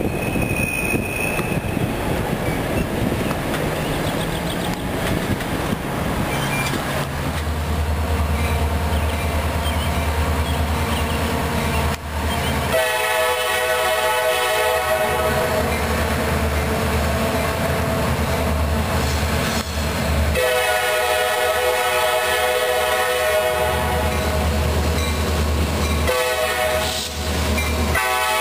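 Nathan K5LA air horn on CSX SD40-2 8319 sounding the grade-crossing signal: two long blasts, then a short one, with a final long one starting near the end. Under it, from several seconds in, the low steady drone of the approaching locomotive's EMD two-stroke diesel.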